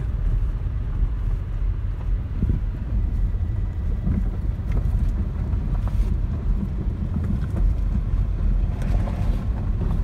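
Car driving slowly on an unpaved dirt road, heard from inside the cabin: a steady low rumble of engine and tyres with a few faint knocks.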